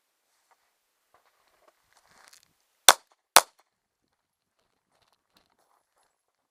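Two shots from a Heckler & Koch SFP9 9 mm pistol, about half a second apart, about three seconds in. A faint rustle comes just before them.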